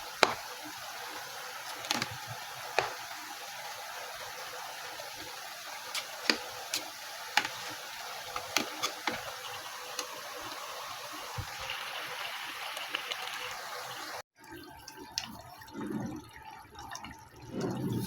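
Potato and eggplant curry simmering in a covered pan: a steady sizzling hiss with scattered pops and crackles. It cuts off suddenly about fourteen seconds in, and fainter, uneven low sounds follow.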